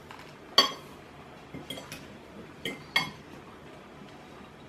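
Metal forks clinking and scraping against dinner plates while eating: a handful of short, sharp clinks, the loudest about half a second in.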